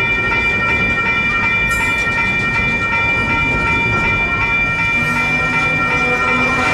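A Union Pacific freight train rolling through a grade crossing: steady wheel-on-rail rumble with a couple of sharp clanks from the cars, under the steady high ringing of the crossing's electronic bells.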